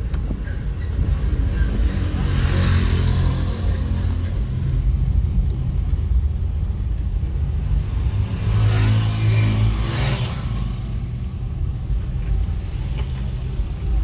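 Steady low rumble of a vehicle driving on an unpaved dirt road, heard from inside it, with motorcycles passing close by about two and a half seconds and about ten seconds in, each pass swelling and fading.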